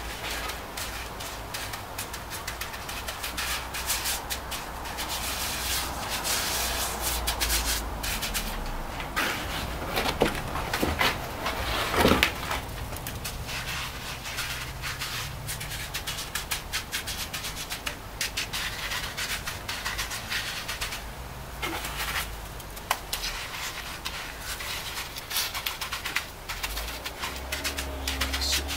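Gloved hand patting and smearing wet pumice-cement render onto a concrete oven dome: a rough rubbing, scraping noise with many short pats, loudest about twelve seconds in.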